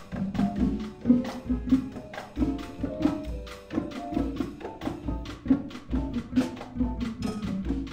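Small jazz band playing live: an upright bass line under quick, busy percussion hits from drums and hand percussion, with keyboard notes above.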